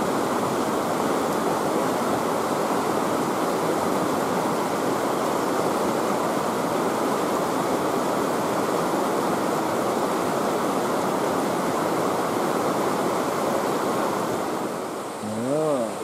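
Mountain stream rushing steadily over rocky riffles, dropping away briefly near the end.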